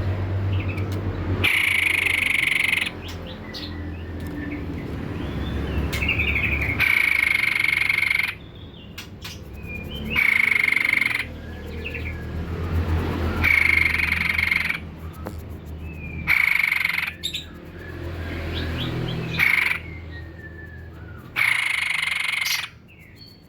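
White-breasted babbler (tepus dada putih) singing vigorously: loud calls about a second long, repeated every three to four seconds, with fainter chirps between them over a steady low hum.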